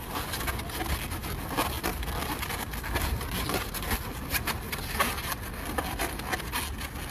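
Long latex modelling balloons squeaking and rubbing as they are twisted by hand, in many short sharp squeaks and clicks, over a steady low rumble.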